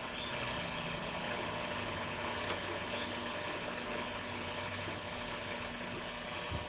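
Hallicrafters S-120 shortwave receiver hissing with static, tuned between stations, over a steady low hum. One faint click about two and a half seconds in.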